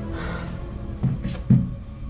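Dark, tense background score with a steady drone. About a second in come two dull thumps, half a second apart, the second one louder.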